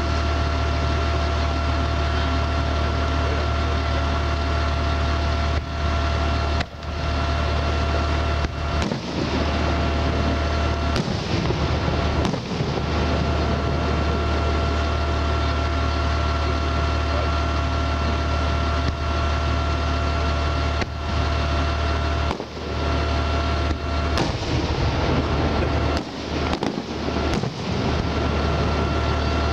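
Fireworks shells bursting several times, a few of them close together near the end, over a steady low engine drone with a faint whine.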